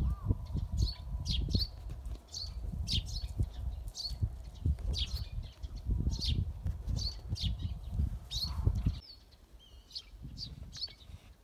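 Small birds chirping over and over in short, high, falling calls. Under them is an irregular low rumble of wind on the microphone, which drops away about nine seconds in.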